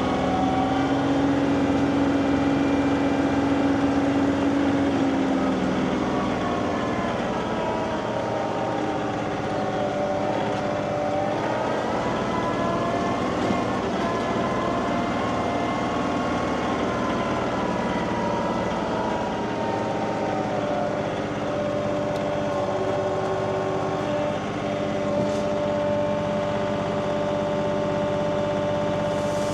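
Tractor engine running under varying load. It holds a higher, steady speed for the first five seconds or so, then drops and wavers up and down through the middle, and settles to a steady speed for the last several seconds.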